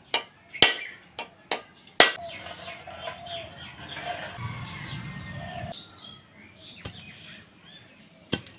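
A heavy knife striking a whole coconut with a series of sharp knocks, the last and loudest cracking the shell. Then coconut water pours and splashes into a steel bowl for a few seconds, with a couple more knocks near the end.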